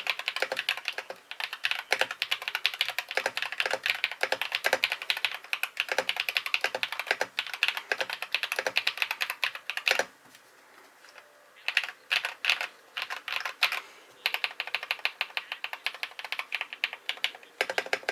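Modded Akko TM680 custom mechanical keyboard with Akko switches being typed on fast: a stream of keystrokes with a nice clack and a poppy sound. The typing stops briefly about ten seconds in, then comes back in bursts.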